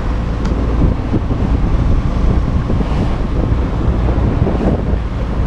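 Wind buffeting the microphone over the rush of waves along the hull of a sailboat under sail in choppy open water; a loud, steady low rumble.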